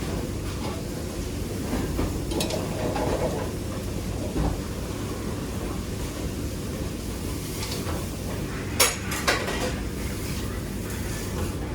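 Busy kitchen sounds: a steady low rumble, with pots and utensils clinking a couple of times near the end.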